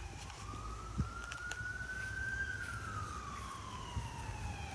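Emergency vehicle siren in a slow wail: one long rise in pitch over about two and a half seconds, then a slow fall, turning to rise again at the very end.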